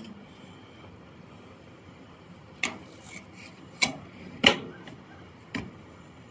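Four sharp clicks or light knocks spread over a few seconds in the second half, the third the loudest, over faint steady hiss.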